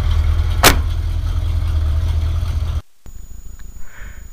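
Chevy truck engine idling with a steady low rumble while warming up after a cold start, with one sharp click about two-thirds of a second in. Near the end the rumble cuts off abruptly and only a much fainter low, even pulsing remains.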